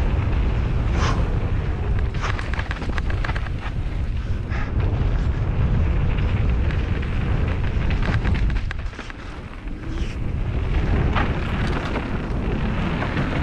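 Wind buffeting the camera microphone on a fast mountain-bike descent, a heavy rumble over the rattle and clatter of a YT Jeffsy mountain bike's tyres and frame on rough dirt trail. The rumble eases briefly about nine seconds in.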